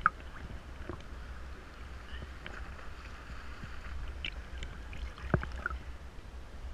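Small sea waves lapping and sloshing against a camera held at the water's surface, over a low steady rumble. Two sharp splashes stand out, one at the very start and one about five seconds in.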